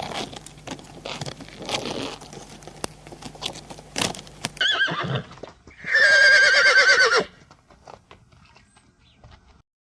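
Horse's hooves clip-clopping, then a short whinny and a loud, trembling whinny that lasts over a second, about six seconds in.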